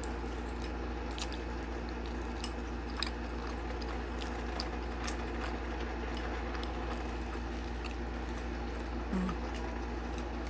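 People chewing dumplings, with soft wet mouth sounds and scattered light clicks of chopsticks against bowls and plates, over a steady low hum.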